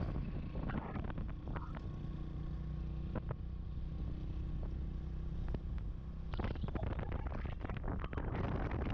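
A vehicle's engine running steadily with a low hum, mixed with scattered small knocks. From about six seconds in it turns into a rougher, noisier rumble.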